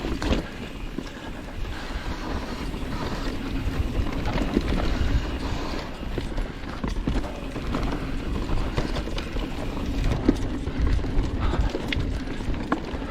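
Mountain bike rolling fast down a dirt singletrack: a steady rush of tyres on dirt with the frame and parts clattering and knocking over bumps and roots.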